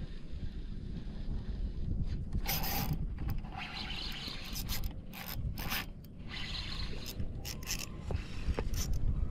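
Shimano Sustain 3000 spinning reel being cranked in several short runs, a mechanical whirring and rubbing, over a steady low rumble of wind and water.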